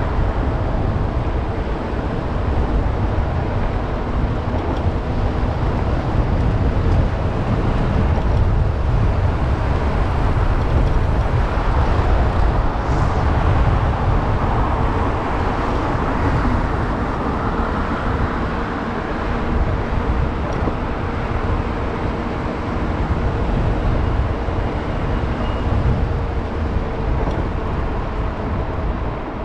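Wind rushing over the microphone of a moving bicycle, with tyre and road noise beneath it, as a steady, heavy rumble.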